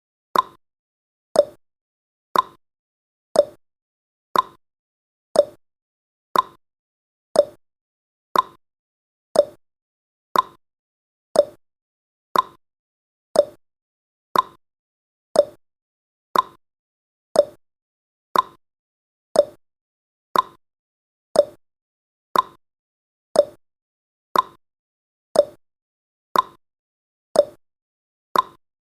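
Countdown timer sound effect: a short click once every second, in a steady, even beat.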